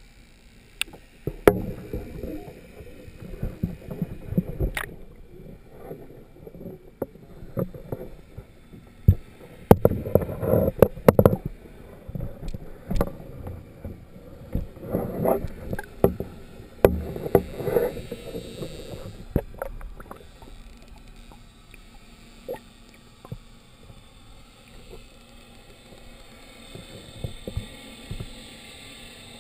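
Muffled water sloshing and knocking heard through a GoPro's waterproof housing just under a kayak, with scattered sharp clicks and thumps. It is busiest about a third of the way in and again around the middle, then settles to a quieter, steadier wash.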